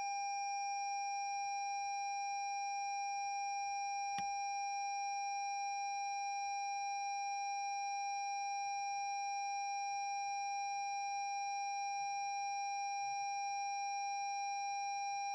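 A steady, unbroken high-pitched electronic tone, with a single click about four seconds in.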